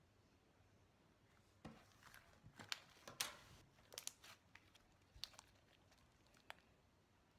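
Butter slime made with glue, Play-Doh and borax solution being stretched and squeezed by hand: a faint, irregular run of sticky clicks and small pops. It starts about a second and a half in and stops near the end.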